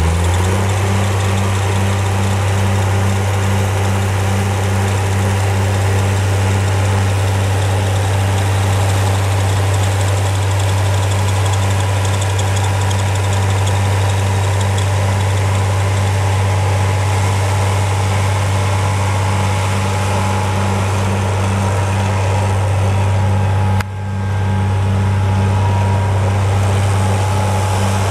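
White 2-135 Field Boss tractor's V8 diesel engine running steadily at an even speed as the tractor drives, with a brief dip in level late on.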